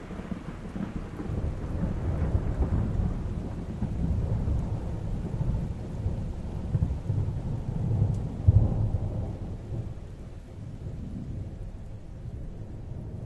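Rolling thunder: a deep rumble that swells in waves, loudest about eight and a half seconds in, then fades away, over the hiss of rain.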